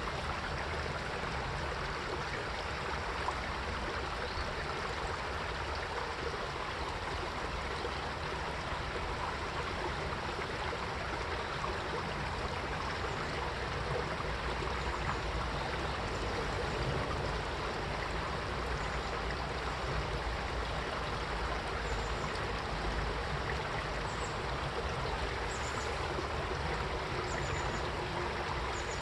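Mountain stream water flowing and gurgling over rocks, a steady rushing without let-up.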